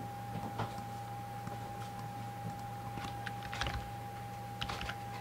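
A few scattered light clicks of a computer mouse and keyboard, over a steady electrical hum with a thin high whine.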